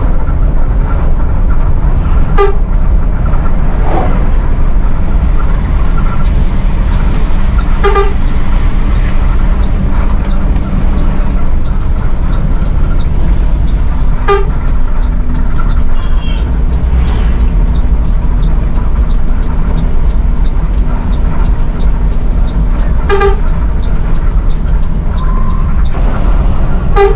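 An intercity coach's diesel engine running steadily under way, heard from the driver's cab, with the horn sounded in short toots about five times at uneven intervals.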